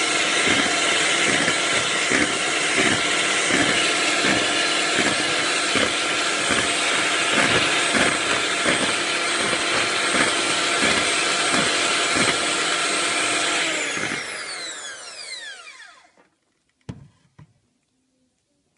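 Electric hand mixer whisking a thin egg, sugar, butter and milk batter in a bowl, running steadily, then switched off about fourteen seconds in, its whine falling in pitch as it winds down. Two short knocks follow near the end.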